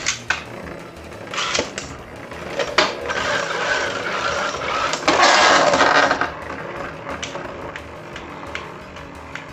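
Beyblade spinning tops battling in a plastic stadium. Sharp clicks and knocks come first, then a steady grinding rattle of the tops scraping and colliding, loudest about five to six seconds in, then thinning to scattered clicks.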